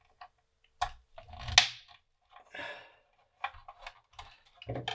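Screwdriver and metal plate of a floppy drive being worked on: a series of separate clicks, knocks and scrapes as a screw is undone and the parts are handled, the loudest knock about one and a half seconds in.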